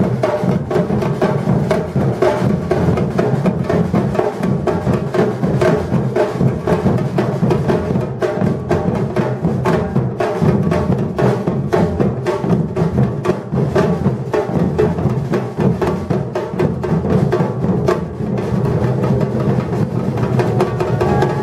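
Batucada drum ensemble playing a fast, driving rhythm without a break: deep bass drums under dense, crisp strokes from snares and higher hand percussion.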